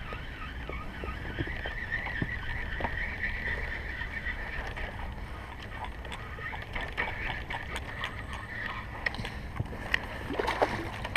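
A fishing reel whirring steadily while a hooked coho salmon is played, over a low rumble; a cluster of knocks and small splashes near the end as the landing net is handled over the side of the inflatable boat.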